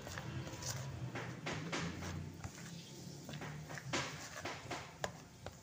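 A hand squeezing and mixing thick flour batter in a plastic bowl: irregular wet slaps and squishes, with a low steady hum underneath.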